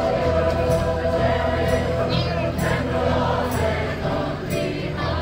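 A group of people singing together to music, voices holding long notes over a steady low drone.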